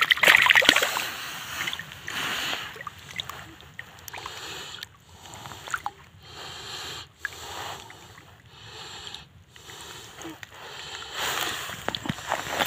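Shallow water splashing as a hand releases a small bream at the shoreline, loudest right at the start, followed by uneven sloshing and lapping in the shallows that picks up again near the end.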